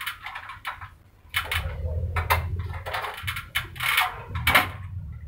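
Irregular metal scraping and knocking as a 1 PK split air-conditioner outdoor unit is shifted by hand along its steel wall bracket. The scrapes come thicker and louder from about a second and a half in.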